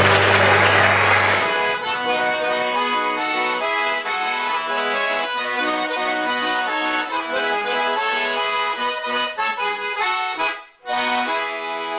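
Accordion music with no singing. It comes in as the live concert sound cuts off about a second and a half in, stops briefly near the end, and comes back in.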